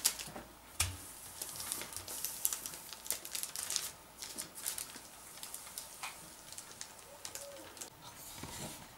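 Baking parchment rustling and crinkling in irregular bursts as hands smooth it and handle a thin wooden rolling pin, with a few light knocks.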